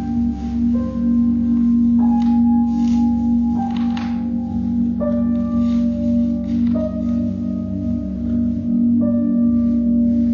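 Didgeridoo drone held steadily underneath, with clear struck bell-like notes ringing out one after another at changing pitches, a new note every second or two.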